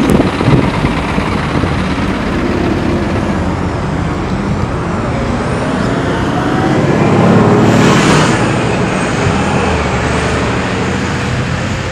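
Steady road-traffic noise on a snowy street, with a vehicle passing close and growing loudest about two-thirds of the way through.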